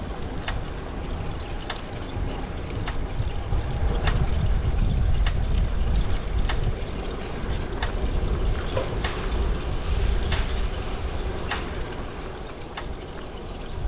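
Low rumble of wind buffeting the microphone while riding, heaviest through the middle, with a light sharp click repeating about once every second and a bit.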